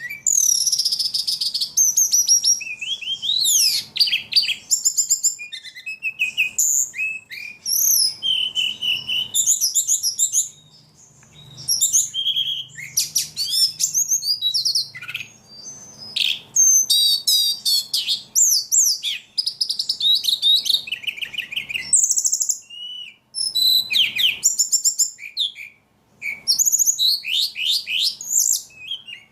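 Songbird singing energetically and almost without pause: fast, varied high-pitched chirps, trills and sweeping notes, breaking off briefly a few times.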